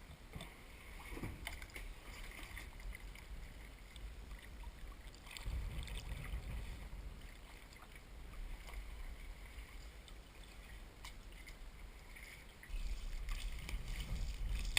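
Sea kayak paddling: the paddle blades dip and splash in the water. Twice, around the middle and near the end, gusts of wind buffet the microphone with a low rumble.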